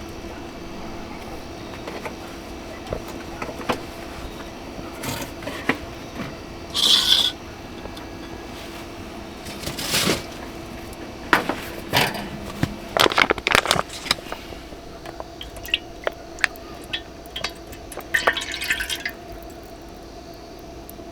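Camp cooking sounds: liquid pouring and dripping, with scattered clinks and knocks of pots and utensils over a steady low hum, and two brief hissing bursts about a third of the way in and near the end.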